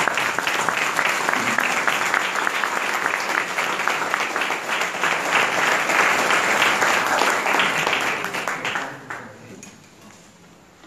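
Audience applauding, many hands clapping; the applause dies away about nine seconds in.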